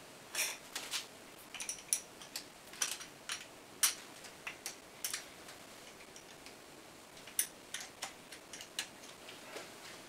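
Open-end wrench clicking on the steel hollow nuts of a Demag ZBV hoist motor's brake as they are worked loose: irregular light metal ticks, close together in the first half and sparser near the end.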